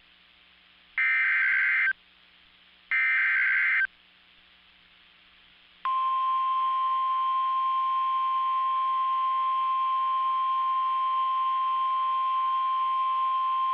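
EAS alert on NOAA Weather Radio, heard through a weather radio's speaker. First the SAME digital header: the tail of one burst, then two more one-second data bursts about a second apart. About six seconds in, the steady single-pitch 1050 Hz warning alarm tone begins, signalling a severe thunderstorm warning.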